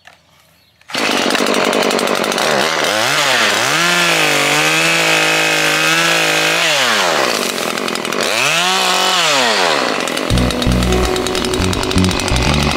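Chainsaw starting about a second in, then revving and cutting through a wild olive trunk. Its pitch rises, holds, drops, and rises and drops a second time, then settles into lower, uneven running near the end.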